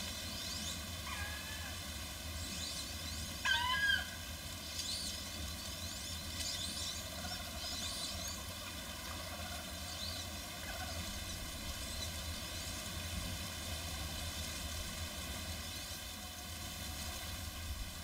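Wood ducks calling: a series of thin, steeply rising whistles, with a louder rising squeal about three and a half seconds in; the calls thin out after about ten seconds. A steady low rumble lies under them.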